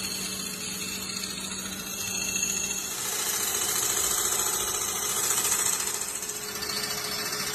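Wood lathe running while a turning gouge cuts into a spinning wooden blank: a steady hiss of wood being peeled away over the motor's hum, growing louder about two seconds in and easing off near the end.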